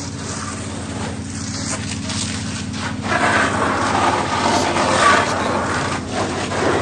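Fire engine running with a steady low hum while its water stream flows; about three seconds in, a louder, rough rushing noise from the water joins the engine.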